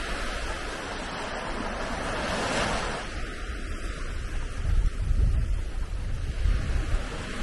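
Small waves lapping and washing up a sandy beach, with one wash swelling about two and a half seconds in. Wind rumbles on the microphone in the second half.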